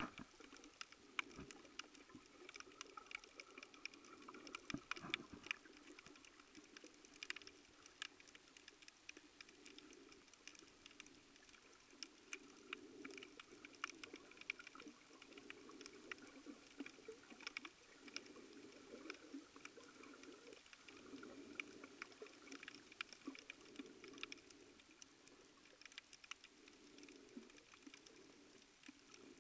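Faint underwater ambience heard through the camera: a scattered crackle of many small, sharp clicks over a muffled low wash that swells and fades every second or two.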